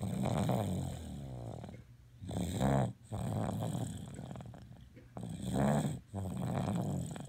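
Rhythmic snoring in slow breaths: twice a short, louder snore, about three seconds apart, each followed by a longer, quieter breath.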